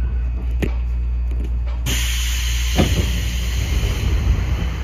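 Iyotetsu 3000 series electric train standing at a station, its equipment giving a steady low hum, with a click. About two seconds in a steady hiss switches on suddenly, and a thud follows about a second later.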